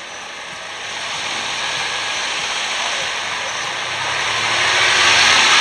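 Classic Porsche 911's air-cooled flat-six driving slowly past close by, its engine note growing louder as it draws level, over a steady rushing noise.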